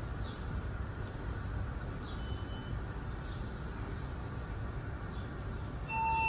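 Steady low rumble of a parking-garage elevator lobby with faint high chirps now and then; near the end a long, steady electronic beep starts, the arrival signal of a newly modernized elevator.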